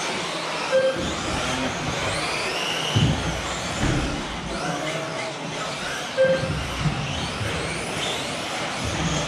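Several electric 1/10-scale 2WD off-road RC buggies racing, their motors' high whines rising and falling as they accelerate and brake, with a few low thumps. Two short electronic beeps sound, about a second in and again about six seconds in.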